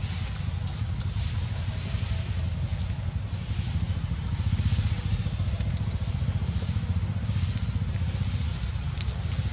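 Steady low rumble with a fainter hiss above it, unbroken throughout.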